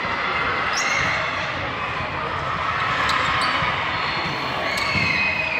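Basketball bouncing on a hard court in a reverberant hall, over general game noise and voices, with a few short high squeaks about a second in and near the end.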